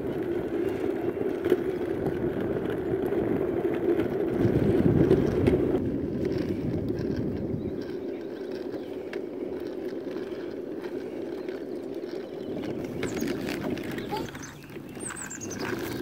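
Kick scooter wheels rolling on an asphalt path, a steady rumble that swells about four to six seconds in and dips briefly near the end.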